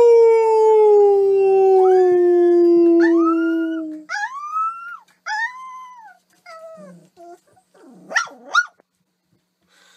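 Young puppy howling: one long howl sliding steadily down in pitch for about four seconds, then a string of short rising-and-falling yelps and a quick wavering cry, dying away near the end.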